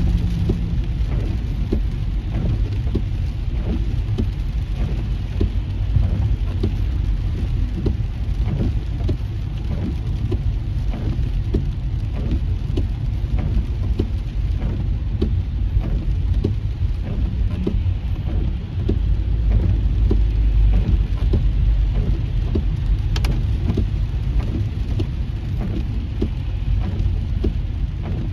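Heavy rain hitting a car's roof and windshield, heard from inside the moving car: a constant stream of raindrop ticks over a steady low rumble of tyres and road.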